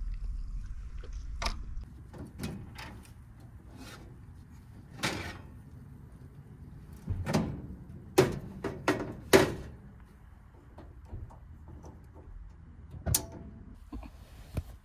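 Scattered knocks and metal clatter as a portable propane oven's door is opened and a metal pizza pan is pulled out and set down. The loudest knocks come in a quick cluster about halfway through.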